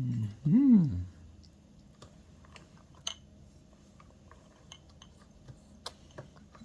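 Baby being spoon-fed: a short voiced sound about half a second in, then faint chewing and mouth sounds with scattered small clicks of spoon and dish.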